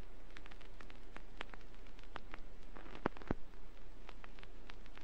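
Stylus riding in a vinyl record's groove with no music: steady surface hiss and a low hum, with irregular crackles and two louder pops about three seconds in.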